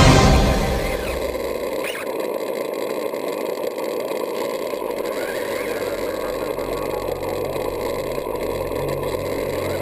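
Traxxas Summit RC truck's electric motor and drivetrain running in a steady whirring hiss, with a few faint rising whines as the throttle is opened. Background music fades out within the first second.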